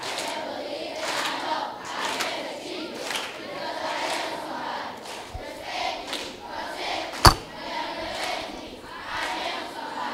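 A large group of students' voices in unison, in regular phrases about a second apart. A single sharp knock about seven seconds in is the loudest sound.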